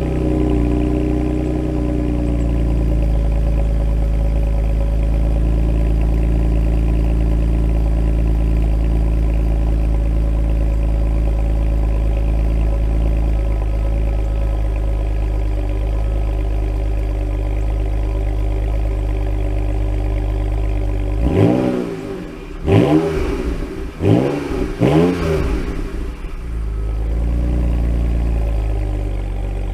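BMW N52 inline-six with a BMW Performance Exhaust idling just after a cold start, the fast idle settling down in the first few seconds. About two-thirds of the way through it is revved in four quick throttle blips, each rising and falling, then it drops back to a steady idle.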